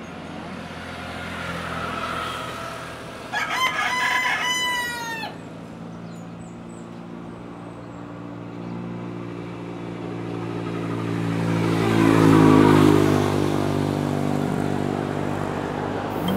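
A rooster crows once about three seconds in, a single call of about two seconds. Under it a motor vehicle's engine drones steadily, growing louder to a peak about twelve seconds in, its pitch dipping slightly as it passes, then easing off.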